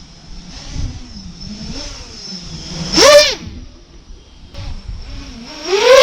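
FPV quadcopter's motors whining as it makes two close, fast low passes about three seconds apart, each a sharp rise and fall in pitch, with a quieter wavering buzz from the motors between.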